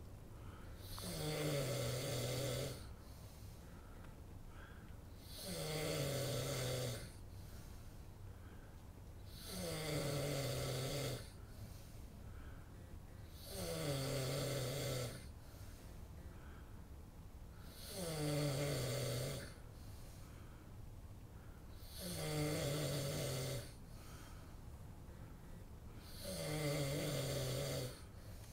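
A person snoring in a slow, even rhythm: seven snores about four seconds apart. Each is a low buzz with a breathy hiss on top, lasting about a second and a half.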